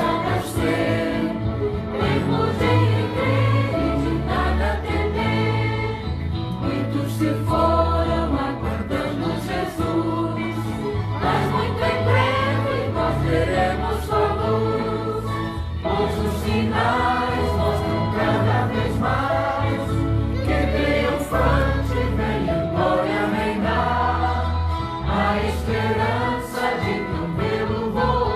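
A recorded gospel hymn played from a CD: a choir singing over an instrumental backing with a steady bass line.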